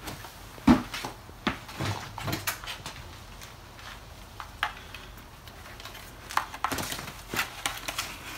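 Handling noises as a plastic bicycle helmet is picked up, put on and its straps adjusted: scattered knocks, clicks and rustles. The loudest is a thump just under a second in, and a run of clicks comes in the last two seconds.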